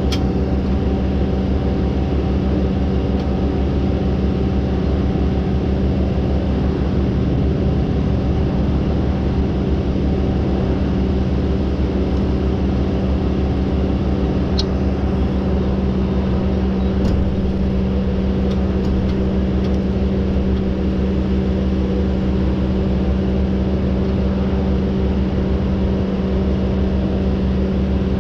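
Heavy diesel engine of logging equipment idling steadily at a constant low pitch, with a few faint metallic clicks about halfway through.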